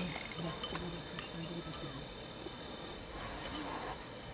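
Crickets singing in a steady, unbroken high-pitched drone, with faint low voices underneath during the first couple of seconds.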